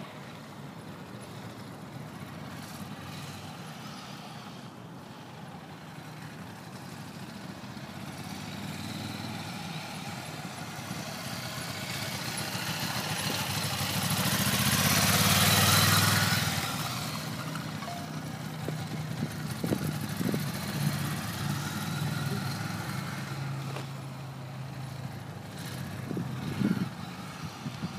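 Ducati motorcycle engine running at low speed through slow, tight turns. It grows louder as the bike comes close about halfway through, then fades as it rides off.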